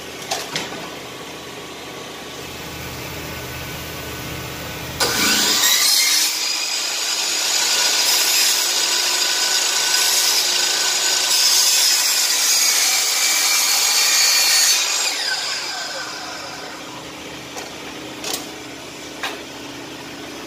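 DeWalt miter saw cutting a 45-degree miter in wooden crown molding: the motor starts with a rising whine about five seconds in, runs loudly through the cut for about ten seconds, then winds down with a falling whine. A low steady hum lies under the first few seconds, and a few sharp clicks come near the start and near the end.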